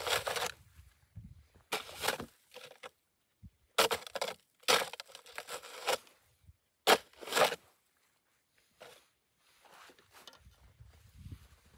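An axe chopping into a small snow-covered spruce, each stroke a loud crunch of wood and snow-laden branches, about five strokes in the first eight seconds. Fainter rustling of branches follows near the end.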